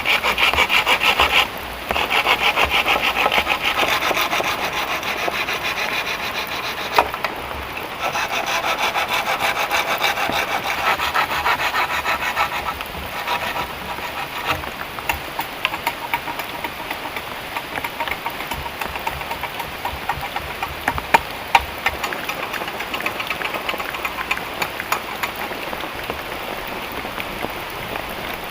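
Wood being sawn by hand with a saw, in rasping bouts broken by short pauses about two and seven seconds in. After about thirteen seconds the rasping turns quieter, with scattered sharp clicks and taps.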